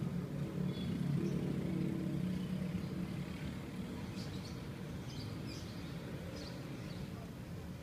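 A motor vehicle engine running with a steady low hum, fading after about three seconds into general outdoor noise, with a few short bird chirps in the middle.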